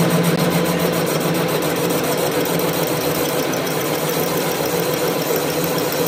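Workshop machinery running steadily with a constant mechanical hum.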